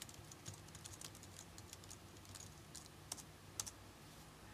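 Faint, irregular keystrokes on a computer keyboard as a terminal command is typed, with two sharper key clicks a little past three seconds in.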